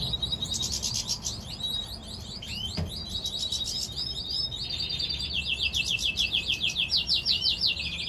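Caged finches singing: a continuous twittering song over a held high note, with fast trills of identical repeated notes that are loudest in the second half. A soft knock about three seconds in.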